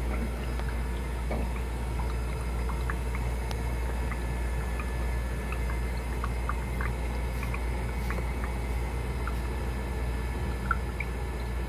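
Steady low machine hum with faint scattered ticks and clicks, and one sharper click near the end.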